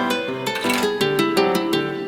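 Background music: a light tune of quickly plucked, harp-like notes over a bass line.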